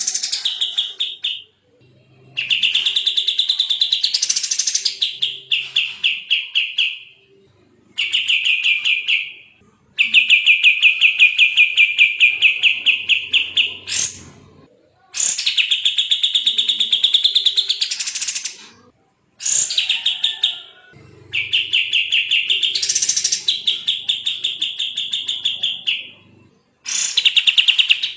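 Sooty-headed bulbul (kapas tembak) singing in rapid, dense trills of quickly repeated notes, phrase after phrase with short pauses between them.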